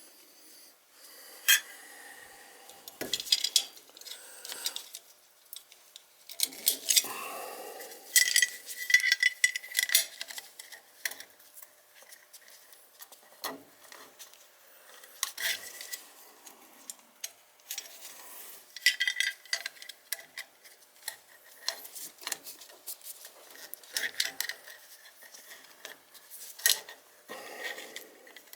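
Metal hand tools and parts clinking and clattering as they are handled, in irregular clicks and taps, some with a short metallic ring.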